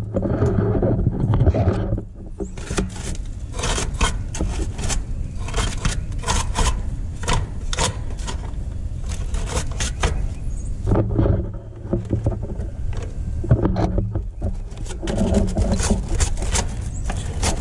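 Repeated short scraping strokes of a stiff nylon brush on the sheet-metal floor of an air-conditioner condenser's control box, sweeping out debris, starting about two seconds in, over a steady low hum.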